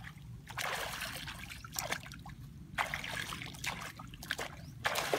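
Shallow muddy water splashing and trickling in three bursts of about a second each as bare feet wade through it.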